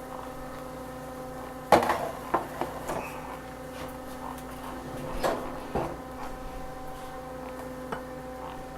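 Kitchen cookware being handled: a sharp knock with a short clatter about two seconds in, a couple more knocks around the middle and a light tap near the end, over a steady hum.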